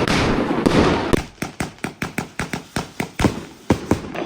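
Firecrackers going off: a dense crackling barrage for about the first second, then thinning out to separate sharp bangs, several a second.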